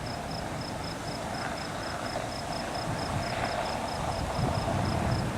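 A cricket chirping steadily, a high pulsed trill of about four chirps a second, over a low steady background hiss.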